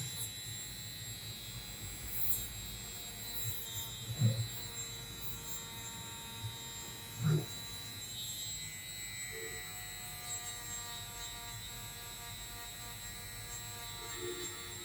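Steady low hum of a small electric motor or tool, with two soft knocks, about four and seven seconds in.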